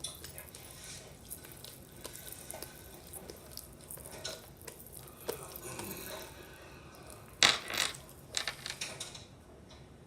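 Slime being mixed in a bowl: irregular clicks and scrapes against the bowl, with a louder burst of scraping about seven and a half seconds in.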